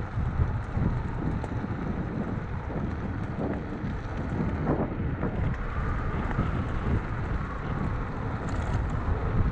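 Wind buffeting the microphone of a camera on an electric scooter riding at speed: a steady, dense rumble strongest in the low end.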